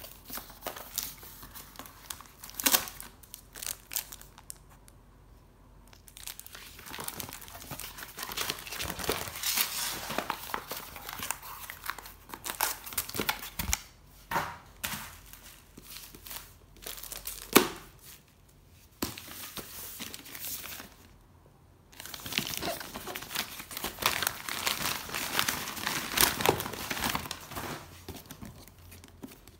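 Plastic packaging crinkling and tearing as parcels are unwrapped by hand, with cardboard being handled, in bursts with short pauses. A couple of sharp knocks stand out, about three seconds in and again just past halfway.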